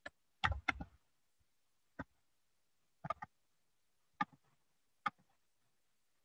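Faint scattered clicks and taps, a handful of short separate strokes with a small cluster about half a second in.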